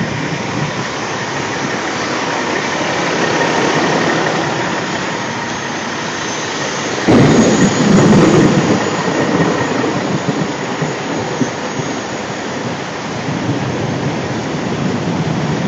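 Heavy thunderstorm downpour: rain falling hard and steadily, with a sudden loud crack of thunder about seven seconds in that rumbles on for a couple of seconds.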